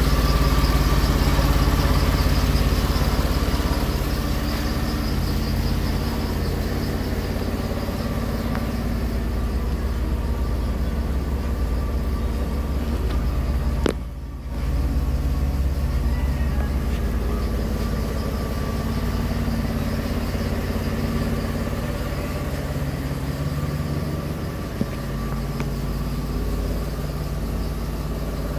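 DeLorean DMC-12's PRV V6 engine idling steadily just after a cold start. A sharp click and a brief dip in the sound come about halfway through.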